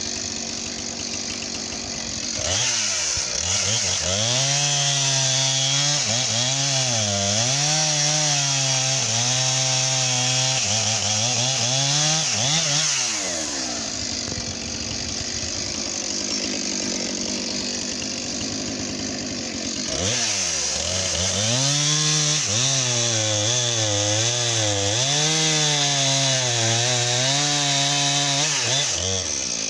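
Chainsaw cutting through a log. Its engine note drops and wavers as the chain bogs in the wood, rises freer for a few seconds around the middle, then drops into a second spell of cutting.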